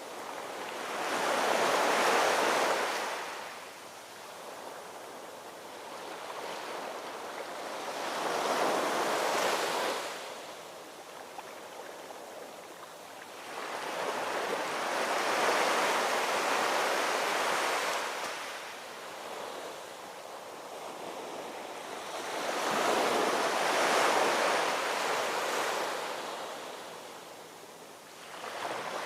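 Ocean surf: waves breaking and washing in, the rush swelling and fading about every seven seconds, four times.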